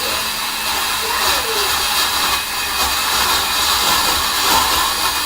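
Countertop blender running steadily at speed, blending spinach, avocado, apple, water and ice into a smoothie and swirling it into a vortex.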